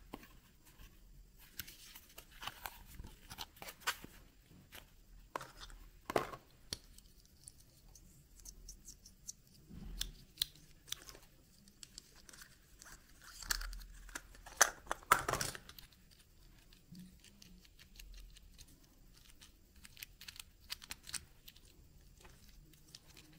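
Hands opening a plastic surprise-egg capsule and unpacking the toy inside: scattered clicks and taps of plastic with crinkling and tearing of paper and wrapping. A louder run of rustling comes about fourteen to fifteen seconds in.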